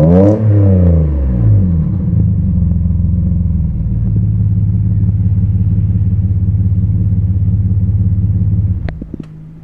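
Alfa Romeo 164 Super's 3.0-litre 24-valve V6, heard at the twin exhaust tailpipes. The revs fall back from a throttle blip to a steady idle in about a second and a half. The engine note then cuts off near the end, followed by a couple of faint clicks.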